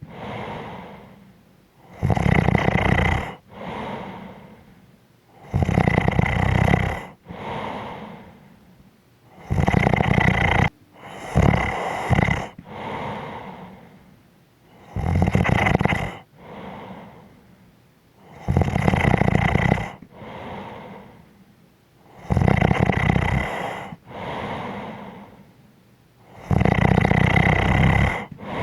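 A person snoring in slow, regular breaths, about one every three and a half to four seconds. Each loud snore is followed by a softer, quieter breath. One breath about a third of the way in breaks into a few short, stuttering pieces.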